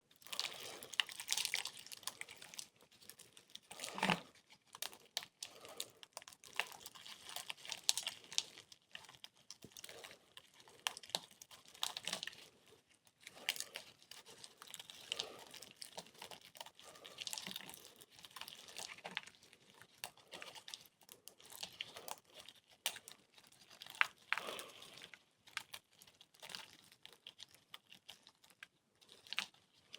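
Bear-shaped blocks of compressed gym chalk being crushed and crumbled: continuous irregular crunching and crackling, with a louder crisp snap now and then.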